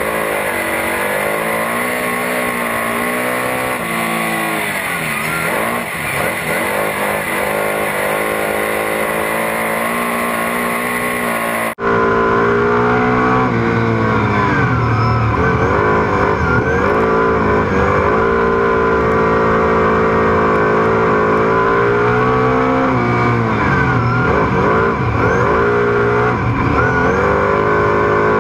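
Superstock speedway race car engine heard onboard at race pace, its pitch dropping and climbing again as it lifts off for the turns and accelerates out. About twelve seconds in, the sound switches abruptly to a louder, heavier engine note.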